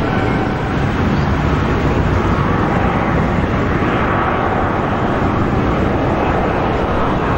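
Jet airliner engines running, a steady rumble and roar with a faint whine that grows slightly clearer past the middle.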